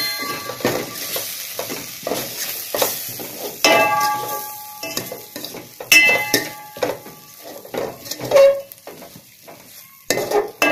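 Steel spoon stirring and scraping okra, onion and tomato with spice powders around a stainless steel pot, in irregular strokes with ringing metal clinks against the pot, over the sizzle of the vegetables frying.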